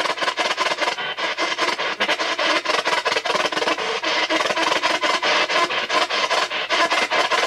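P-SB7 spirit box sweeping the AM band with the antenna off: choppy radio static, rapidly and evenly chopped several times a second, with no clear voice fragment.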